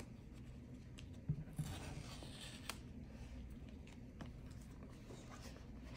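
Faint rustling and light taps of hands turning a white cardboard watch box, with a few small clicks and one slightly louder rustle about a second and a half in.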